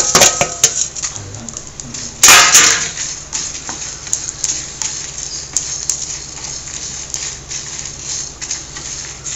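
Wooden spatula stirring and scraping dals, coriander seeds and dried red chillies roasting in a steel kadai, with clinks in the first second and a louder scrape about two seconds in. Small ticks and crackles run on under the stirring.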